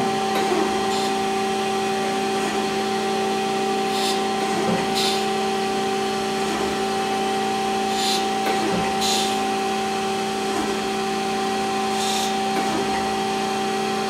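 Chevalier FSG-1020AD surface grinder running in automatic mode with a steady motor hum, its wheel dry grinding steel. Short hissing grinding passes come in pairs about a second apart, every few seconds, as the table reciprocates under the wheel.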